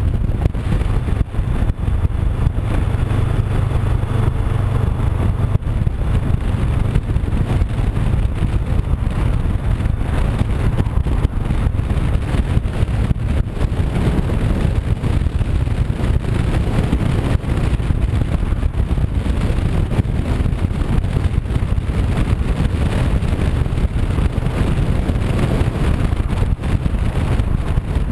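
A Honda CB500X's 471 cc parallel-twin engine running at a steady cruise, mixed with a continuous low rumble of wind over the camera's microphone.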